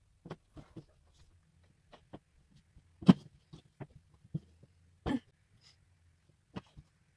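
Handling noise as fabric is worked over a cardboard hat form on a table: scattered short knocks and taps, the loudest about three seconds in and a slightly longer one about five seconds in.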